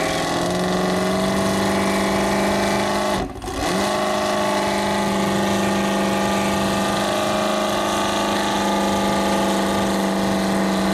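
Trophy truck's race engine held at high, steady revs with its wheels spinning in deep sand, the truck stuck. The note breaks off briefly about three seconds in, then picks up again at the same steady pitch.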